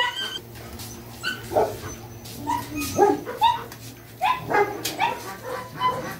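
Dogs in a kennel barking and yipping: about ten short barks, irregularly spaced.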